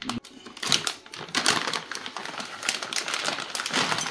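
Small metal bolts and fittings clicking and clattering together as they are handled and tipped out of their packaging, with paper or plastic rustling, in an irregular run of sharp clicks.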